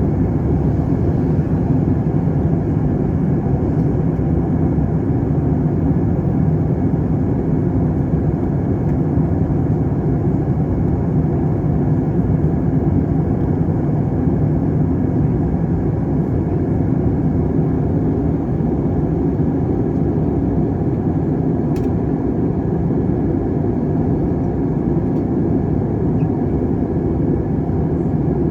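Steady cabin roar of a jet airliner in flight: engine and airflow noise heard from inside the passenger cabin, a loud, even low rumble.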